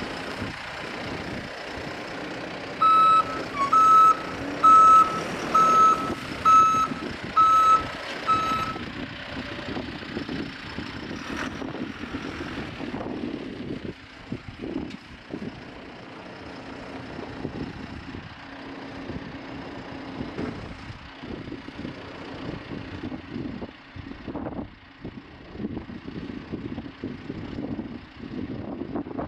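John Deere 410L backhoe loader's diesel engine running steadily. About three seconds in, its reverse alarm beeps seven times, roughly one beep a second, as the machine backs up.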